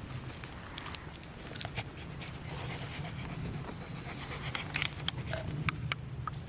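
Light metallic jingling and scattered sharp clicks, like a dog's collar tags and gear being handled, as water is readied for the dog.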